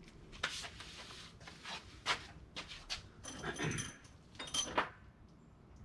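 Tools and parts being handled in a shop: scattered light clicks and knocks, with a short scrape about three and a half seconds in and a few metallic clinks just after.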